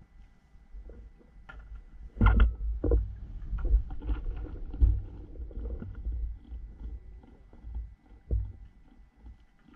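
Wet gill net being hauled by hand into a small outrigger boat: rustling of the net and a run of knocks against the hull, the loudest about two seconds in, over a low rumble.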